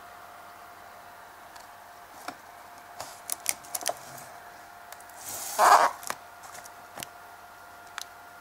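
Handling of a shrink-wrapped firework box: the plastic wrap crinkles with scattered light clicks, and a louder rustle comes about halfway through, over a faint steady hum.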